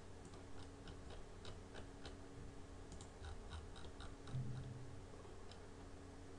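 Faint, irregular computer-mouse clicks from selecting edges in CAD software, over a steady low hum, with a short low sound about four seconds in.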